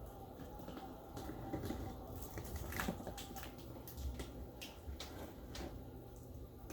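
Scissors and cardboard packaging being handled as a box is cut open: scattered light snips, scrapes and rustles, with a faint steady hum underneath.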